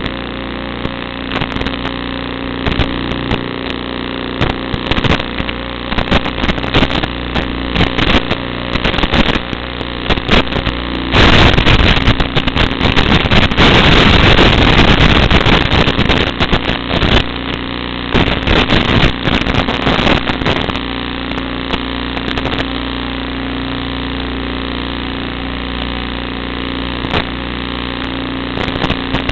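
Lantian 130 FPV racing quadcopter in flight, heard through its onboard audio: a steady motor drone with frequent crackles, turning louder and rushing for several seconds from about 11 s in.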